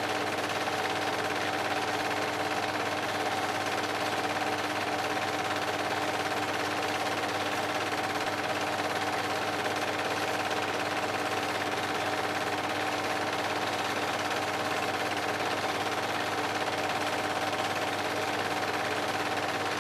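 Film projector running: a steady, fast mechanical clatter with a constant tone under it.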